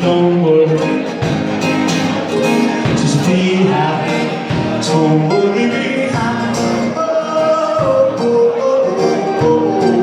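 Live band music with singing over a guitar accompaniment.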